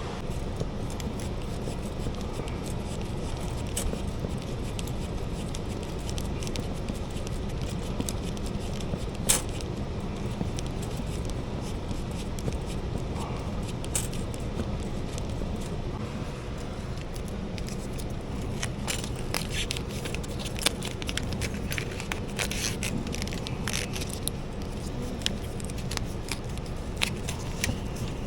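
Scattered metal clicks and scrapes of tools and fittings being handled over a steady low hum, with the clicks coming more often in the last ten seconds.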